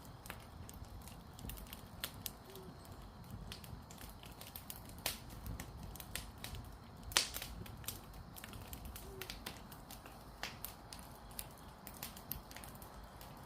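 Burning firewood crackling, with irregular sharp pops and snaps over a low steady rumble; the loudest pop comes about seven seconds in.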